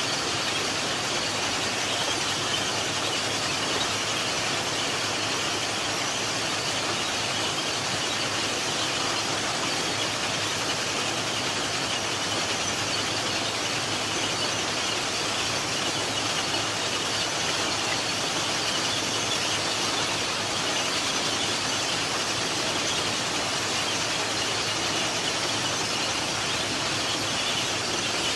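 Plasser & Theurer PM 1000 URM formation rehabilitation machine at work: a continuous, even mechanical din, mostly high-pitched and hissing, from its running machinery as it moves spoil through its chutes.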